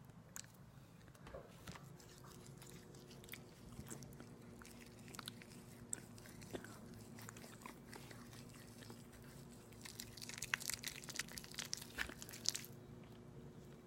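Close-miked mouth sounds of someone eating aloe vera: scattered sticky clicks and bites, then a dense run of crunching and chewing about ten seconds in that stops shortly before the end.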